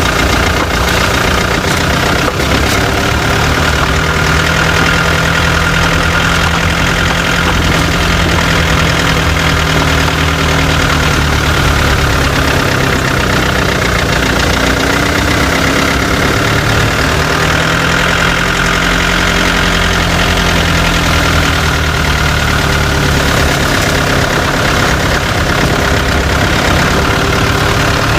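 Chevrolet Tavera running and moving off, picked up close to the right-hand wheel: steady engine note with road and underbody noise, its pitch rising and falling a little around the middle. This is the noise in which the owner listens for an intermittent 'khat-khat' knock from underneath that comes on bumps and turns and that several mechanics have not traced.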